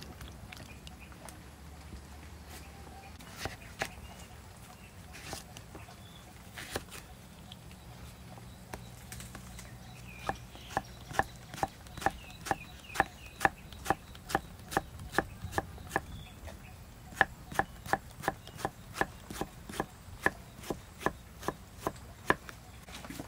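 Knife slicing green bananas on a wooden chopping board: steady sharp taps about two a second begin about ten seconds in, with a brief pause partway, after a few scattered knocks.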